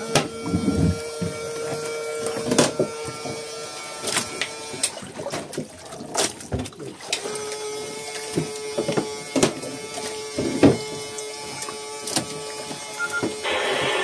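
A steady mechanical hum that drops out for a couple of seconds midway and then returns slightly lower, with irregular sharp knocks and clatter, and a rush of noise starting near the end.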